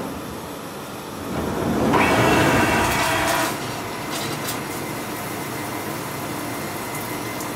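Metal lathe spindle spinning up, loudest for about a second and a half, then running steadily with coolant spraying off the turning chuck and workpiece.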